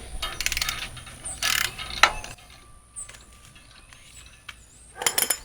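Socket ratchet clicking in quick runs, loosening bolts on the front of a BMW M50 engine; it goes quieter in the middle, then a last burst of clicks near the end.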